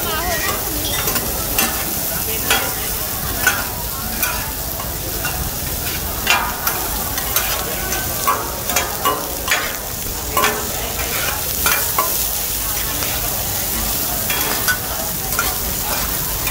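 Crispy omelettes and bean sprouts sizzling steadily in oil on a large flat steel griddle, with frequent sharp scrapes and clinks of metal spatulas turning them on the griddle.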